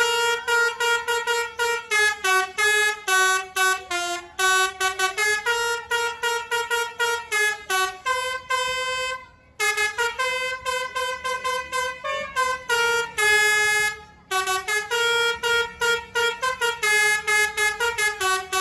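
A bus's telolet musical horn playing a fast melody of short, staccato notes. The melody runs loudly with a few longer held notes, around the middle and again a little later, and short breaks just before each of them.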